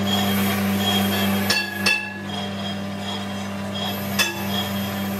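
Brake-drum lathe running with a brake drum spinning on its arbor: a steady motor hum with a faint regular pulse. Sharp metallic clinks ring out from the drum, two close together about a second and a half in and one more just after four seconds.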